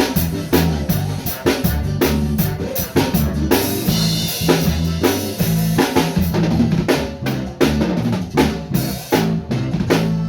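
Bass guitar and drum kit playing together: a steady run of drum hits over held, moving bass notes.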